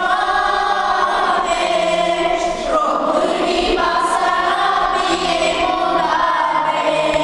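Children's choir singing together, holding long notes.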